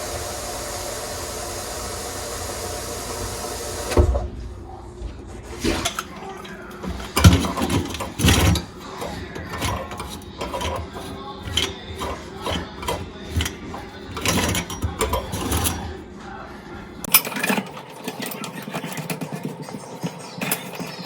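A motorized drain-cleaning machine running steadily, cutting off about four seconds in, followed by irregular knocks and clatter.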